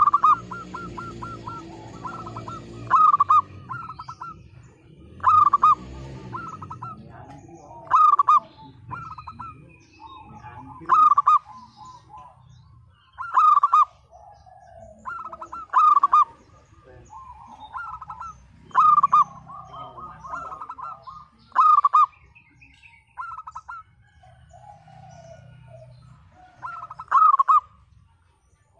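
Zebra dove (perkutut) cooing: short loud bursts of rapid staccato notes, repeated every two to three seconds.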